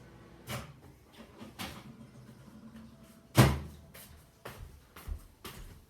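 A few short clicks and knocks, with one loud low thump about three and a half seconds in that dies away, then a quick run of clicks near the end.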